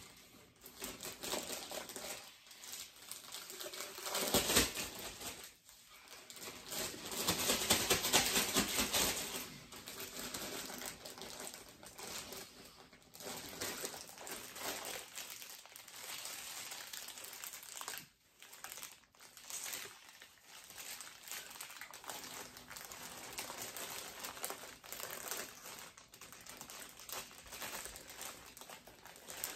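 Packaging crinkling and rustling as the parts of a figure statue are unwrapped and handled, with small clicks, loudest around four and again around eight seconds in.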